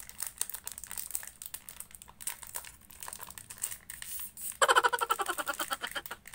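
Plastic ice cream wrapper crinkling as fingers handle and pull at it, with a much louder stretch of crackling plastic about four and a half seconds in.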